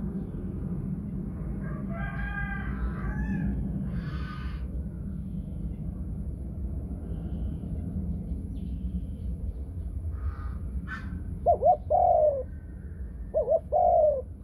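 Spotted dove cooing: two low phrases near the end, each of two short notes followed by a longer drawn-out note, over a steady low background rumble.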